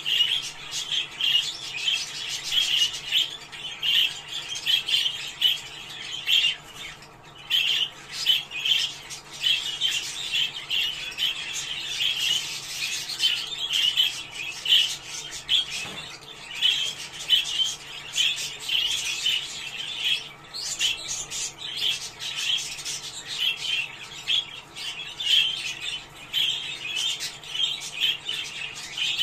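A flock of budgerigars chattering, with dense, continuous warbling and chirping and frequent sharp squawks.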